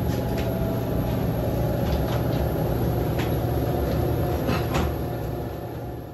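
Steady low machine hum inside an airport jet bridge, with scattered light clicks and knocks from suitcases rolling over the carpet and people walking toward the aircraft door. The sound fades away near the end.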